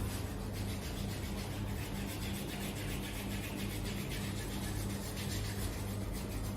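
Steady rubbing or scraping friction over a constant low hum. The rubbing begins about half a second in and fades out near the end.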